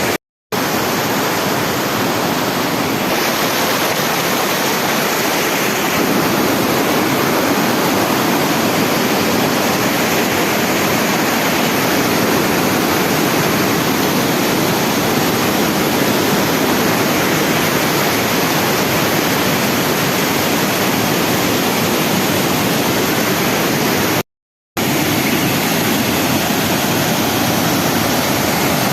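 Steady rushing of a swift river's water. It cuts out to silence for a moment twice, just after the start and about 24 seconds in.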